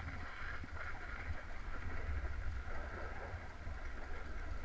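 Snowboard sliding down a packed, groomed slope: a steady hiss of the board over the snow under a gusting rumble of wind buffeting the action camera's microphone.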